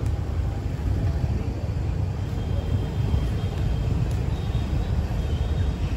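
Steady low rumble of motorbike and street traffic, heard from a moving motorbike.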